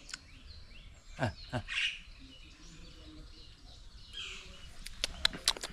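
Birds calling in short chirps, with a quick run of sharp chirps near the end.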